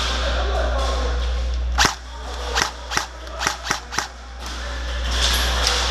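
Airsoft gunfire: about six sharp single shots in quick, uneven succession near the middle, over a steady rushing background noise.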